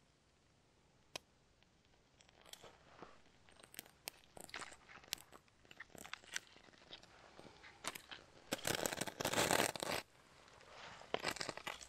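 Dry kindling being worked by hand at a fire lay: a knife scraping and shaving a dry stick with scattered snaps and scrapes, then a loud crunching lasting about a second and a half near the end as the kindling is handled and broken.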